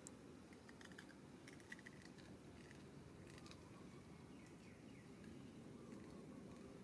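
Near silence: a faint steady outdoor background with a few faint clicks and, a little past the middle, a couple of faint short high falling chirps.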